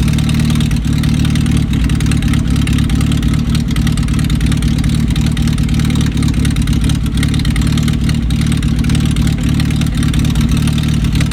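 Carbureted four-cylinder engine of a 1982 Datsun wagon running steadily, held just above idle with a little throttle because it will not idle on its own.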